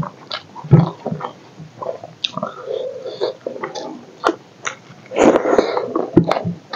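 Close-miked eating: wet chewing and lip-smacking, with soft squelches and clicks as fingers mix rice and chicken curry on a banana leaf.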